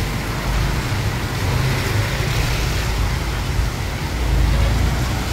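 Road traffic passing on a wet street in heavy rain: a steady low rumble of engines under an even hiss of rain and wet tyres, swelling a little about four seconds in.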